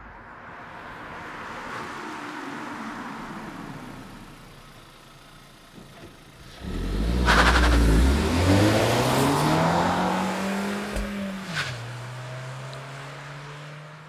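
A car engine effect, labelled as an Audi A3. First a rushing sound swells and fades. Then, about seven seconds in, the engine comes in loudly and revs, its note climbing steadily for about four seconds, and after a sharp crack it drops to a steady lower note.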